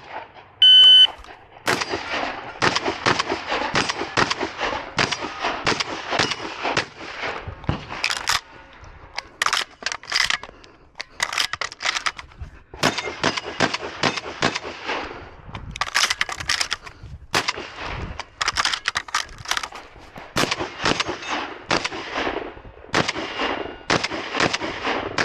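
Shot-timer start beep, then a semi-automatic Beretta 1301 Comp Pro shotgun firing strings of rapid shots with short pauses between them.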